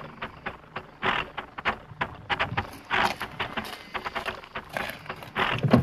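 Footsteps crunching on a gravelly tarmac lane, a few short irregular steps about once or twice a second.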